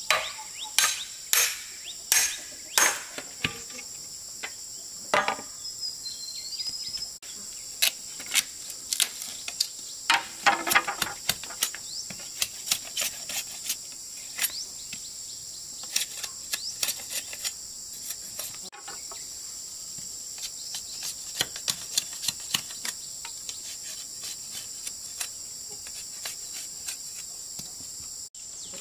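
Steady high chirring of insects, with irregular hammer knocks over it that come thick and fast in the first half and then thin out to lighter taps.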